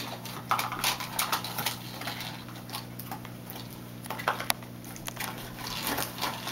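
Irregular small plastic clicks and taps from a toy train being pushed along a plastic track and toy-set pieces being handled, with some light rustling.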